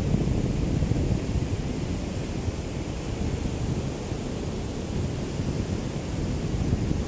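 Small waves of a calm sea washing on the shore, with wind buffeting the microphone in a low, fluttering rumble that stays fairly steady throughout.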